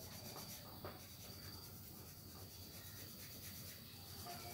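Quiet room tone with faint rubbing and handling noise and a few light clicks, over a faint steady high-pitched tone.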